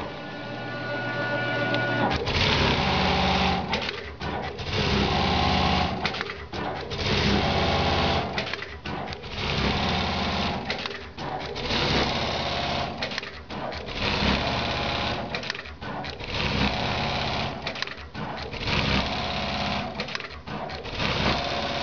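Brother BAS-342GXL industrial pattern sewing machine stitching in short runs of a second or two with brief breaks between them. A quieter stretch with a steady high whine comes in the first two seconds.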